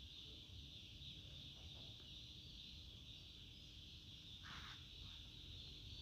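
Near silence: a faint, steady high-pitched hum, with a brief soft rustle about four and a half seconds in.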